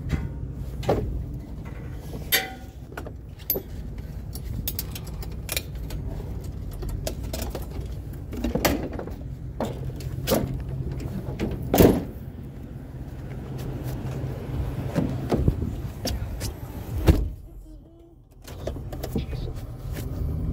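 A vehicle's engine running steadily, with scattered knocks and clunks over it. The loudest clunk, about 17 s in, is followed by a brief quieter spell.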